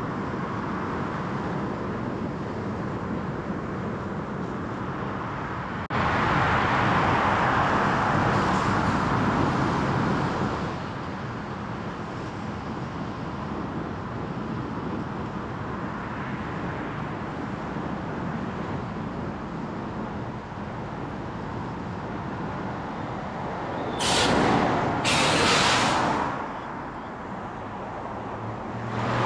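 Steady road and tyre noise from a car driving through city traffic. The noise steps up abruptly about six seconds in and falls back after about four seconds. Two short, loud hisses come near the end.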